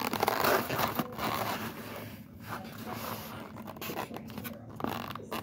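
Styrofoam clamshell takeout container being handled and its lid pressed shut: the foam squeaks, creaks and scrapes, loudest in the first second, with a few sharp clicks later.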